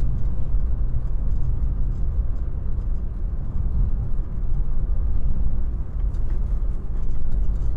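Inside the cabin of a 1995 BMW E36 M3 on the move: its 3.0-litre straight-six and the tyres on a rough road make a steady low drone that swells and dips a little, with no clunks from the suspension.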